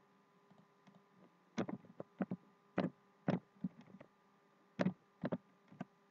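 Computer keyboard keystrokes and mouse clicks: about ten short, sharp clicks in irregular groups, over a faint steady electrical hum.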